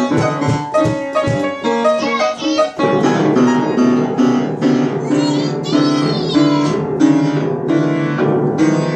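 Upright piano keys banged at random by young children: clusters of notes struck over and over, choppy at first, then from about three seconds in lower notes ring on together under repeated strikes.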